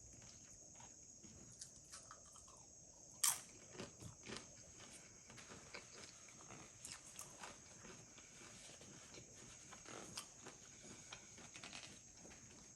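Tortilla chips from a plate of nachos being bitten and chewed close to the microphone: soft scattered crunching, with one louder crunch about three seconds in.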